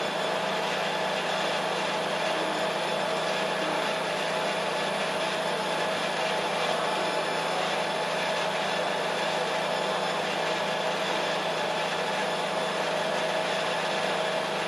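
A machine running steadily: an even whirring hiss with a constant mid-pitched hum underneath.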